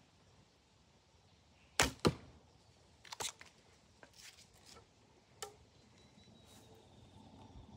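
A traditional bow shot: a sharp snap of the string on release, then the arrow striking the target about a quarter second later. A few lighter clicks and taps follow as the next arrow is handled and nocked.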